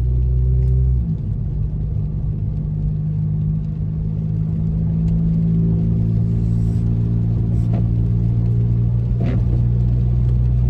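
Car engine and road rumble heard inside the cabin while driving: a steady low drone that shifts in pitch about a second in.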